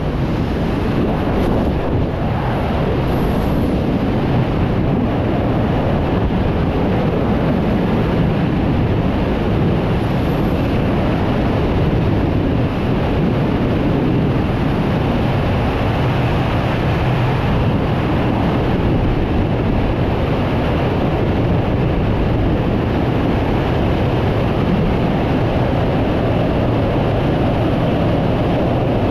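Freefall wind rushing past a skydiver's camera microphone: a loud, steady rush of wind noise, heaviest in the low end, with no breaks.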